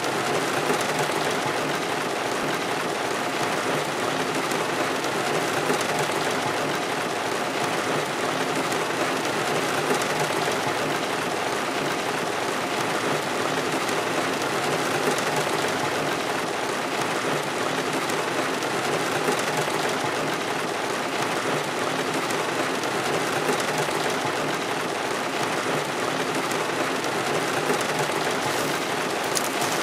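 Heavy rain falling steadily on a car's roof, heard from inside the car as a dense, even patter.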